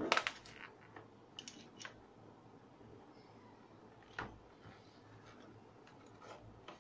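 Steel press parts (a cranked shaft, a bored collar and a geared motor housing) handled and fitted together by hand, clinking and knocking against each other. The loudest knocks come in a cluster at the start, then a few sharp clicks, a single knock about four seconds in and soft clicks near the end.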